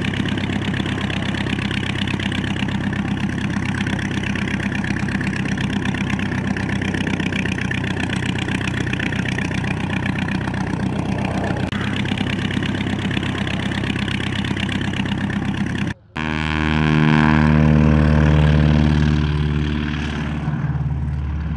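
A propeller aircraft engine running steadily. After a cut about two-thirds of the way through, a louder engine sounds with its pitch falling over a few seconds, then it settles.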